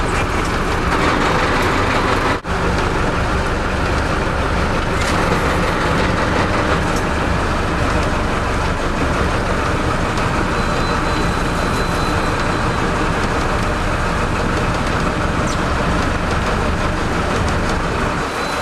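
Steady, loud noise of a sportfishing boat at sea: the low rumble of its engines mixed with wind and water noise, dropping out for a moment about two seconds in.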